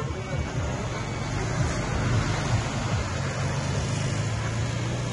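A motor vehicle's engine running close by, a low hum over road noise that settles into a steady drone about four seconds in.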